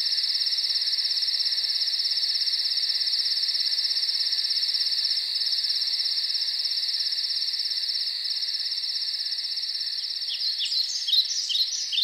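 A steady, high-pitched insect chorus trilling on without a break. Birds begin chirping near the end: short, falling, dawn-chorus calls.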